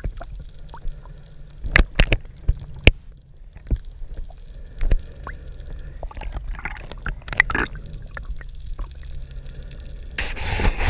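Underwater sound over a reef: a low, muffled water rumble with scattered sharp clicks. A stretch of splashing and bubbling comes around six to seven and a half seconds in as the surface is broken, and a louder rush of water noise builds near the end.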